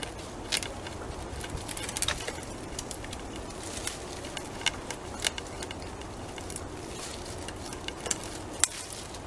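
Beaver eating: irregular crisp crunching clicks of gnawing and chewing, a few louder snaps among them, over a steady background hiss.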